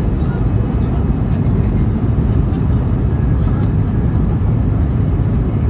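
Steady low rumble of an Airbus A321neo airliner's jet engines on approach, mixed with wind buffeting the microphone.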